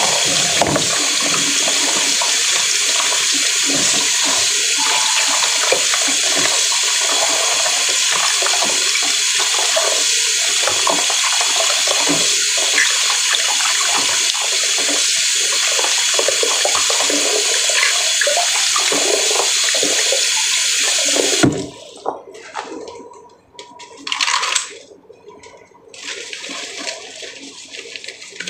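Kitchen tap running hard into a stainless steel sink, splashing over lemongrass stalks being rubbed clean by hand. The water stops abruptly about three-quarters of the way through, leaving quieter handling sounds and one brief louder swish.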